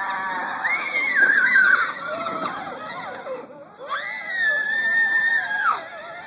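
Dog whining in high-pitched, drawn-out cries, one wavering cry early on and a long held one in the second half.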